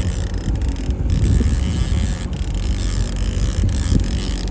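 A boat motor runs with a steady low rumble while wind buffets the microphone. A few faint clicks come from a trolling reel being cranked in on a hooked salmon.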